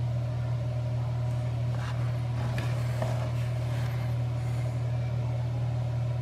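A steady low hum, like a fan or motor running in the room, with a few faint light clicks.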